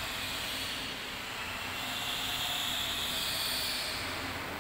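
Steady hiss of room noise with a faint low hum.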